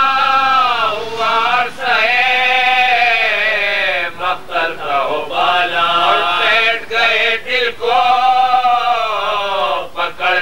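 Male chanting of an Urdu marsiya, the lament sung in long drawn-out notes that waver up and down, broken by short pauses for breath.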